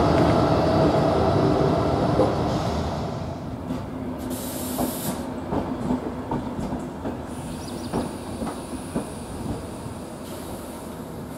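ČD Cargo class 363 electric locomotive running while shunting, with a steady electric hum. Then, after a cut, passenger coaches roll slowly in, their wheels clicking over rail joints, with a brief high hiss about four seconds in.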